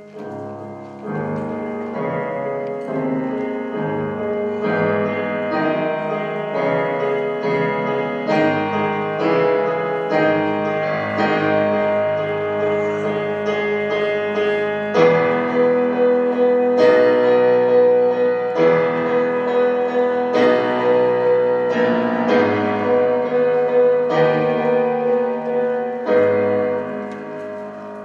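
Slow piano music with notes left ringing, growing louder about halfway through.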